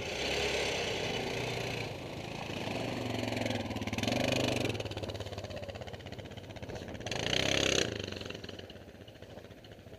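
Quad bike (ATV) engines running and revving as the quads ride off, swelling loudest about half a second in, around four seconds and just before eight seconds, then easing.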